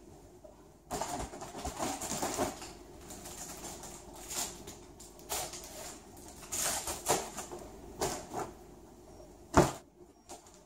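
Handling noises of a filled Mylar balloon and its plastic filling tube as the balloon is taken off the tube: the balloon film crinkles and rustles on and off from about a second in. A single sharp knock about nine and a half seconds in is the loudest sound.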